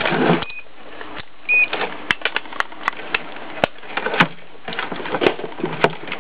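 Handling noise as a multimeter and its test leads are fetched and set out on a workbench: a string of irregular small clicks and knocks, with two short high beeps about half a second and a second and a half in.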